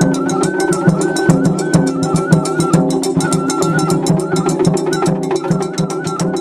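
Japanese festival-style music: a high stepping melody over steady low tones, drums and rapid even clicks, beginning to fade near the end.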